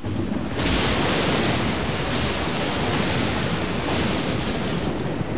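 Thunderstorm sound effect: thunder cracks loudly about half a second in and rolls on as a steady, heavy rumbling roar.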